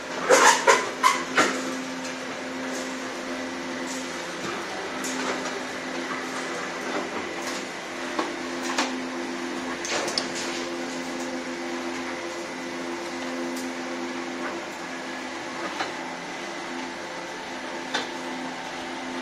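Belt conveyor and pan mixer of a brick-making plant's pre-feeding system running: a steady mechanical hum with a low drone. A quick run of loud clattering knocks comes in the first second and a half, then scattered sharp clicks.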